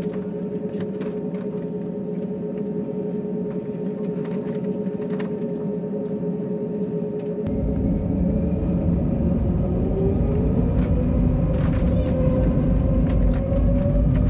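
Airbus A320neo jet engines heard from the cabin, first running at low thrust with a steady whine. About halfway through, a deep rumble sets in and the engine tone climbs steadily in pitch and loudness as thrust is brought up for the takeoff roll. Occasional light clicks are heard throughout.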